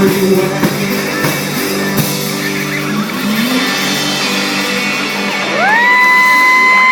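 Blues-rock band playing with electric guitar and drums. About five and a half seconds in, a loud high note is held, then wavers and bends near the end.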